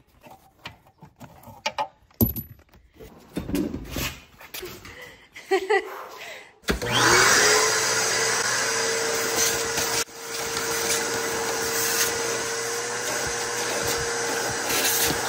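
Metal tools and loose bolts clattering and knocking. About seven seconds in, a vacuum cleaner switches on, its motor whine rising quickly to a steady pitch, and runs steadily as the hose nozzle sweeps the car's floor carpet.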